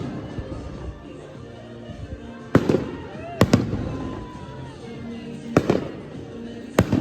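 Aerial fireworks shells bursting: four loud bangs, the first about two and a half seconds in and the rest spread over the next four seconds, each trailing off in a rumbling echo.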